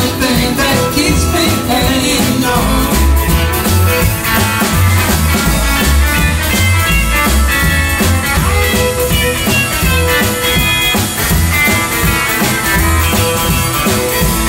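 Country honky-tonk band playing an instrumental passage: fiddle and electric guitar over upright bass and a drum kit, with a steady beat.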